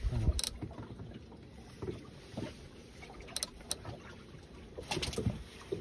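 Water lapping against the hull of a drifting boat, with irregular low thumps and a few short sharp clicks and knocks.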